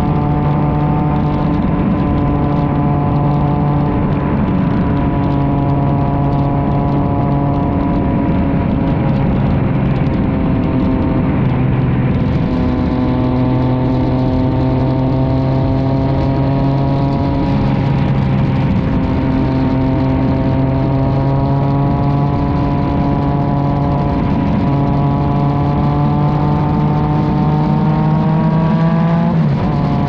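Yamaha XSR900's inline three-cylinder engine through an Arrow aftermarket exhaust, heard close at the silencer while riding at a steady cruise, its pitch drifting gently. Near the end the pitch climbs under throttle, then drops sharply.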